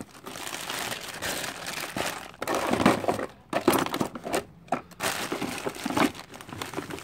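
Plastic bags and paper parts packets crinkling and rustling as hands rummage through a plastic parts case, in uneven surges.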